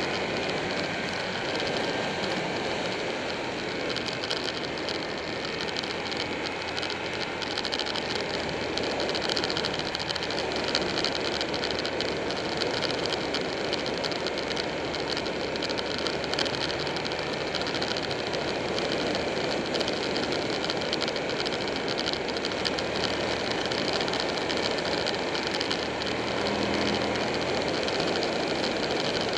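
Buell 1125R's V-twin engine running under way, under a steady rush of wind and road noise. The engine note shifts a couple of times.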